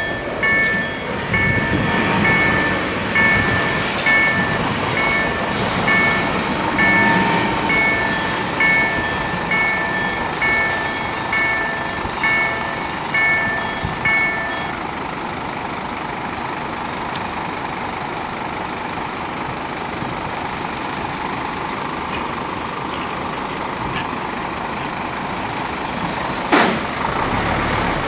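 Level-crossing warning bells ringing a steady, evenly repeating two-tone ding about one and a half times a second, stopping about fifteen seconds in. A steady background hum follows, and a car drives over the crossing near the end.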